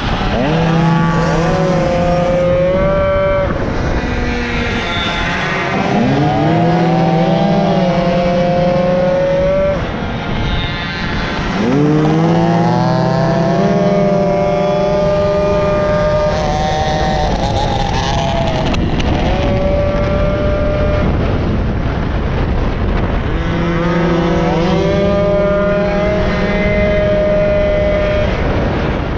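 Racing moped's small two-stroke engine at full throttle, heard on board: its pitch climbs four times, stepping up through the gears and holding, and drops back between climbs as the rider eases off for corners. Wind rushes over the microphone throughout.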